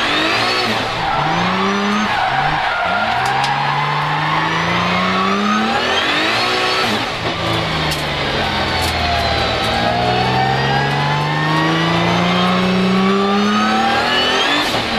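Twin-turbo 3.8-litre VR38DETT V6 of a drift-built Nissan 200SX S13, heard from inside the cabin, revving in several rising pulls as the throttle is worked, the longest building for about four seconds near the end. Tyres squeal under the car as it slides.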